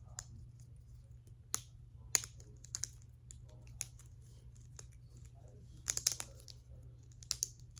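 Small plastic fidget toys clicking as they are handled and fitted together: scattered sharp clicks, one or two at a time, with a quick run of clicks about six seconds in.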